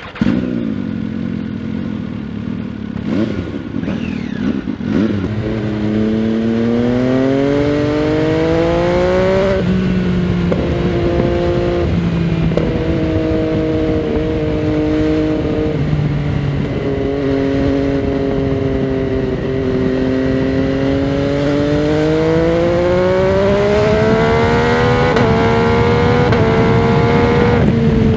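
MV Agusta Dragster 800 RR's three-cylinder engine through a Fresco Trio Corse exhaust with dB-killer, heard from the saddle while riding. The engine note climbs in long pulls, then drops sharply at gear changes, with some uneven throttle work in the first few seconds.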